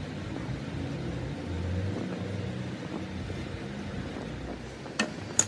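A low, steady motor hum with a wavering pitch, joined near the end by two sharp metallic clicks.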